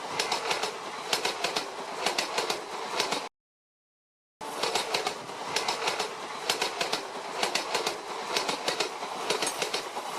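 A train running past, its wheels clattering over rail joints in a steady rhythm of clicks over a rushing noise. The sound cuts out completely a little over three seconds in and comes back about a second later.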